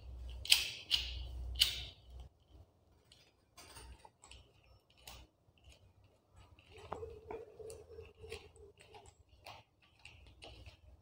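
Clicks from a bicycle V-brake lever's barrel adjuster being turned by hand: a few sharp ones in the first two seconds, then fainter scattered ticks. The adjuster is being screwed in, which slackens the V-brake shoes.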